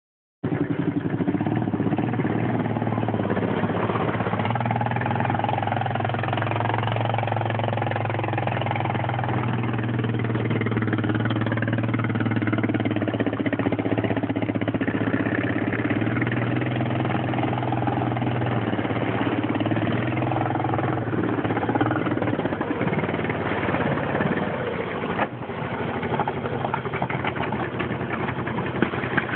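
ATV engine running steadily, its pitch rising and falling a little with the throttle; a sharp click about 25 seconds in, after which the engine sound is a little quieter and choppier.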